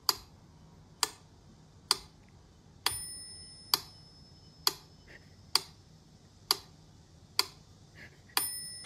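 Mechanical pyramid metronome ticking steadily, a little under one tick a second. Its bell rings on the accented beat, every sixth tick, twice.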